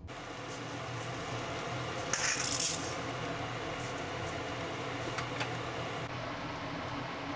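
A bundle of dry spaghetti is dropped into a pot of water, the strands rattling and hissing against the pot for about half a second a couple of seconds in, followed by a few light clicks. A steady hiss runs underneath.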